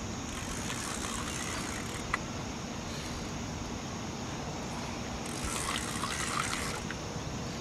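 Old garage-sale spinning reel, noisy when reeled, being cranked in two spells, about a second in and again later, over a steady background hiss. A single sharp click about two seconds in.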